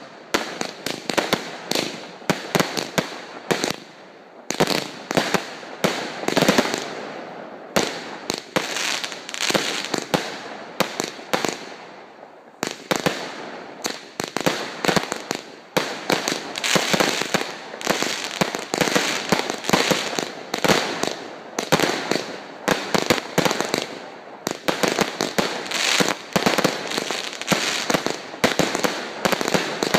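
Aerial fireworks display at close range: a rapid, nearly continuous run of shell bursts and sharp reports with crackling between them, broken by a few short lulls.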